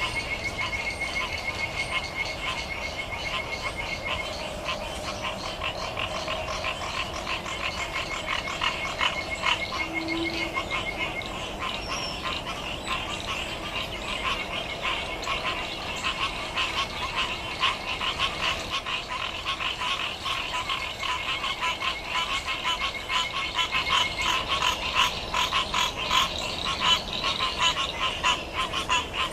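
A chorus of pond frogs calling, many rapid overlapping clicking calls that grow denser near the end. A high, even trill comes and goes three times over the chorus.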